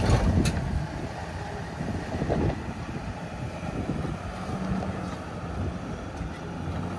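Off-road truck engine running low and steady, with wind buffeting the microphone and a short knock near the start.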